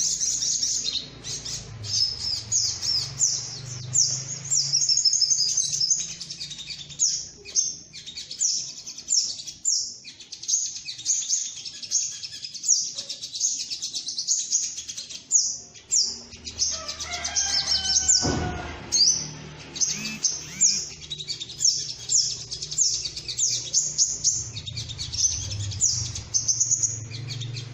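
Little spiderhunter (sogok ontong) calling: a rapid, unbroken series of sharp, high chips, played as a bird-trapping lure call. Around 17 to 18 seconds in, a few falling whistles and a single sharp knock break in.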